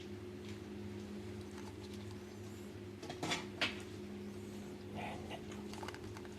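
Steady low electrical hum, with two short sharp clicks about three and a half seconds in.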